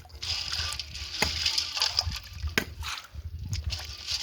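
Water sloshing and splashing in a container, with a few sharp knocks about every second or so.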